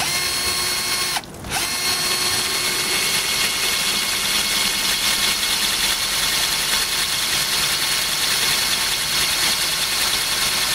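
Cordless drill running, drilling a hole in the seam of a plastic bottle. It whines steadily, stops for a moment about a second in, then starts again and runs on without a break.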